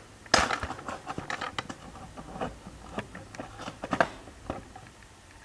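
Cuckoo clock weight chain and fishing line being worked through the clock by hand: a run of irregular light clicks and rattles, thickest in the first two seconds, with sharper clicks about half a second in and at about four seconds.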